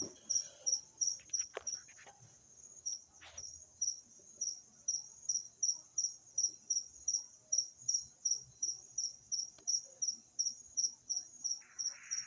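A cricket chirping steadily in short high-pitched pulses, about three chirps a second.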